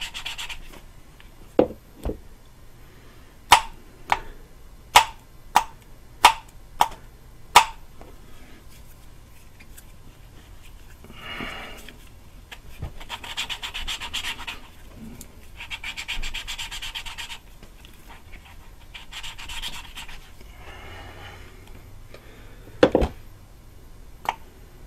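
Exhaust valve being hand-lapped into its seat in a BMW 323i cylinder head with lapping compound. First comes a run of sharp taps, about one every half second to second, as the valve is lifted and dropped onto the seat to recentre the compound. Then come five rasping grinding bursts of a second or two each as the lapping stick is spun back and forth between the palms, and two more knocks near the end.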